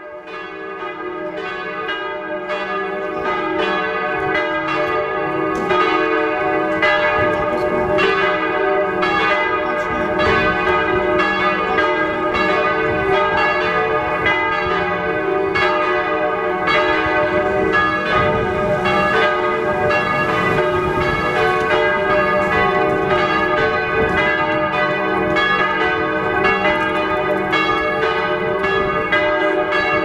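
Full peal of a parish church's former iron bells ringing together, their strikes overlapping in a dense, steady clangour that grows louder over the first few seconds.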